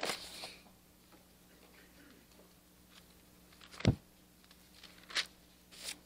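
Bible pages rustling as they are turned at a pulpit, in short bursts, with one sharp knock on the pulpit about four seconds in, the loudest sound.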